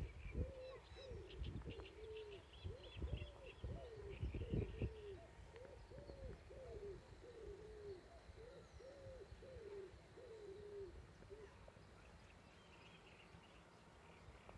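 Low, mellow hooting calls from an animal, each rising and falling, repeated about twice a second and stopping about eleven seconds in. A few brief high chirps of small birds come near the start and again near the end, over a gusty low rumble during the first five seconds.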